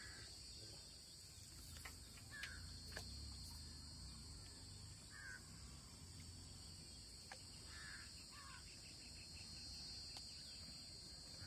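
Faint outdoor ambience: a steady high-pitched insect drone, with about five short bird calls spread through it.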